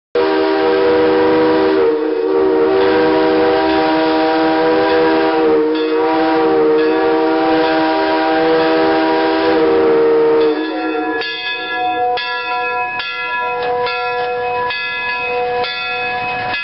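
Steam locomotive whistle blowing a long, loud, steady chord of several tones. About ten seconds in it drops in level and carries on broken into quick pulses, its first blowing with the boiler up to about 100 psi on a test fire.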